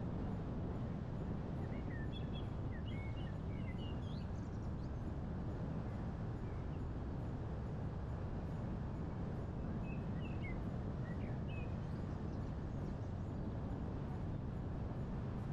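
Steady low rumble of wind and driving noise, with a bird chirping in two short spells, about two seconds in and again about ten seconds in.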